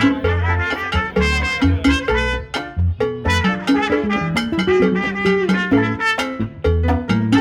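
Up-tempo music with a brass section, trumpet to the fore, over a punchy repeating bass line.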